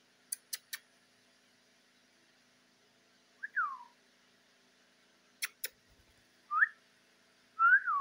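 Short whistled notes, each a quick slide in pitch: first a falling one, later a rising one, and near the end one that rises and falls. Sharp clicks come in between: three quick ones at the start and two in the middle.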